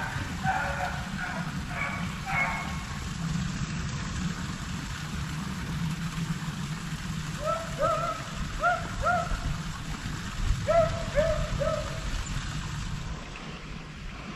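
Beagles baying at a distance in runs of three or four short barks: the pack is on a rabbit's track. A steady low rumble of wind on the microphone runs underneath.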